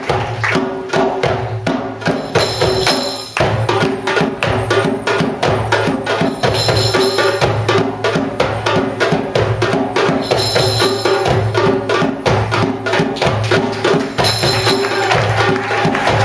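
Darbuka and frame drums played together in a fast, steady, driving rhythm, with a bright jingling accent recurring about every four seconds.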